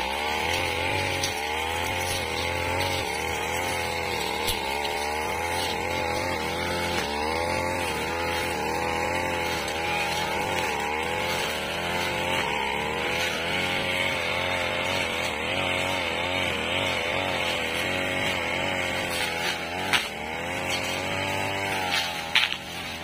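Backpack brush cutter engine running under load as the blade cuts through weeds, its pitch wavering up and down as the load changes. A couple of sharp clicks sound near the end.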